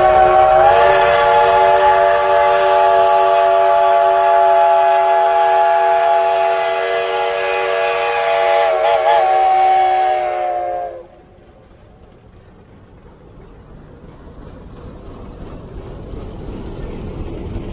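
Heisler #6 geared steam locomotive's whistle blowing one long blast of several notes sounding together, with a brief waver in pitch about nine seconds in, then cutting off suddenly. A rush of noise follows and grows louder toward the end.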